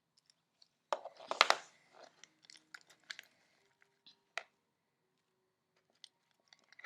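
Creamy, slightly sticky homemade slime being stirred in a plastic container: wet squelching smacks and clicks, loudest in a cluster about a second in, then scattered lighter clicks.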